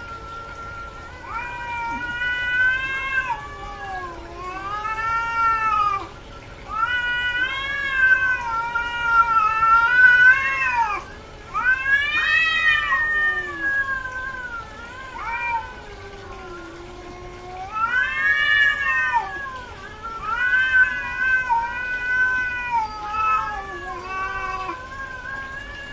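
Female cat in heat yowling: a string of long drawn-out calls, each a second or more, rising and falling in pitch, one after another with short pauses. These are the repeated calls of a queen in heat.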